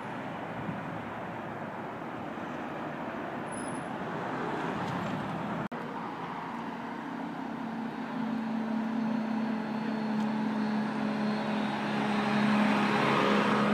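Street traffic noise, then, after a cut about halfway through, the diesel engine of a rear-loading garbage truck running with a steady low hum that grows louder as the truck pulls up alongside.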